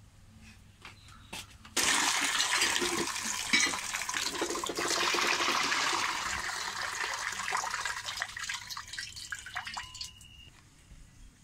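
Water from a hand pump gushing into a metal wok. It starts suddenly about two seconds in and thins out near the end as the pan fills and spills over the rim.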